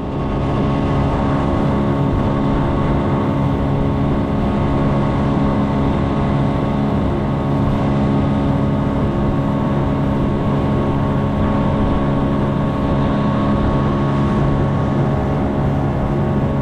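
A fishing boat's outboard motor running at a steady speed with an even, unchanging drone.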